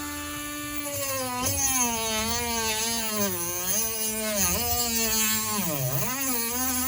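Small handheld rotary tool cutting into a charger's plastic case. Its high motor whine sags and wavers in pitch as the bit bites into the plastic, dips sharply near the end, then picks back up to full speed.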